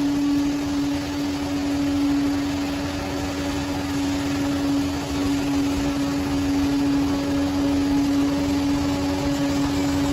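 Bulldozer's diesel engine running steadily, with a strong whine held at one pitch throughout.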